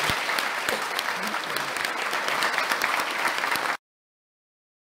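Audience applauding, a dense patter of many hands clapping, which cuts off suddenly a little under four seconds in.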